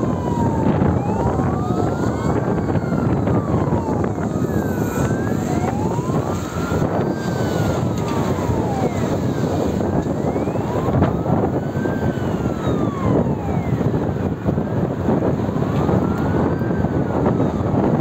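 Forestry fire engine sirens wailing in slow rise-and-fall cycles, one every four to five seconds, with a second, higher siren faintly overlapping. Under them runs steady road and engine noise from a moving vehicle.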